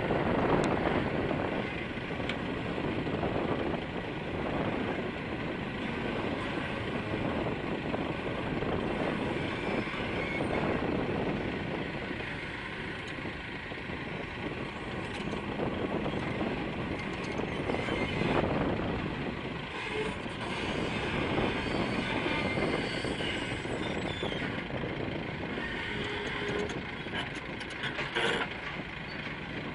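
Heavy diesel machinery running steadily, with a louder swell about halfway through and a short sharp noise near the end.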